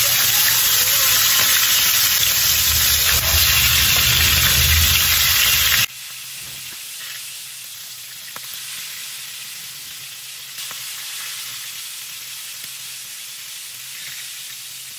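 Pieces of tuna head sizzling as they fry in oil in a frying pan. The sizzle is loud and dense until about six seconds in, then drops suddenly to a much quieter sizzle, with a few faint ticks.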